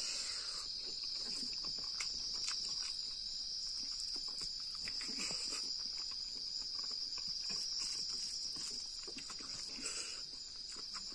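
Steady high-pitched chirring of night insects, with soft scattered clicks and smacks of eating by hand: fingers mixing rice and fish on a plate, and chewing.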